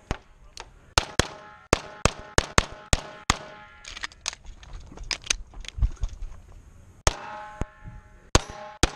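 Rapid pistol fire from an EMG Customs .38 Super competition pistol: about twenty sharp shots, mostly in quick pairs. Near the end a metallic ringing hangs between the shots.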